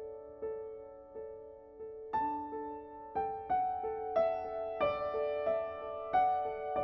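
Soft piano music: a gentle repeating pattern of notes, joined about two seconds in by a slow melody higher up.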